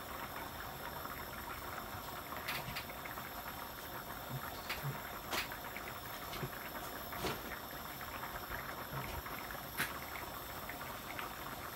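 Thick coconut-milk fish curry bubbling quite fiercely in a frying pan on half heat as it reduces: a steady hiss with a handful of sharp pops scattered through it.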